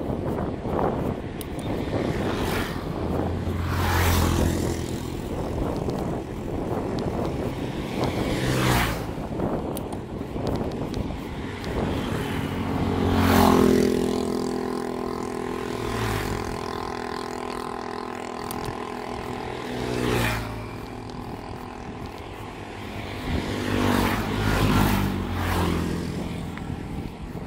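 Wind rushing over a chest-mounted phone microphone on a moving bicycle, with motor scooters running close by. About halfway through, a scooter's engine hum holds steady for several seconds, and another engine is heard briefly near the end.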